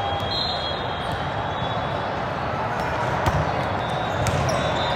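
Busy indoor volleyball-hall din: a steady wash of voices and movement from many courts, with a few sharp thuds of volleyballs being struck, one of them a serve near the end.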